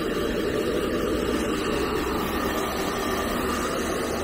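Nova handheld hair dryer running steadily, blowing onto a wet dog's coat.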